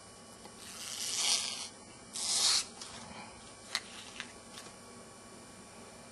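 Handling noise from fingers on a mobile phone: two short rasping rubs, the second louder and more abrupt, then a couple of light clicks.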